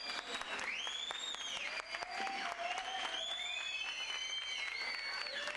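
A crowd clapping, with high drawn-out whistles and shouts rising and falling over the clapping.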